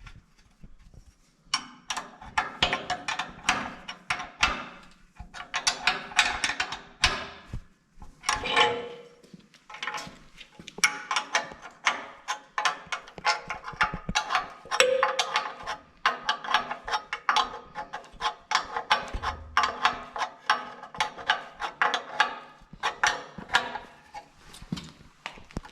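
Hand wrench working jam nuts down threaded all-thread rod against a steel frame: metal clicking and clinking in runs of rapid clicks with short pauses between.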